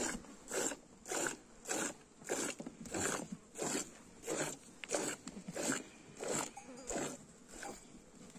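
Goat being milked by hand: milk squirting into a pail in a steady rhythm, one hissing squirt about every two-thirds of a second.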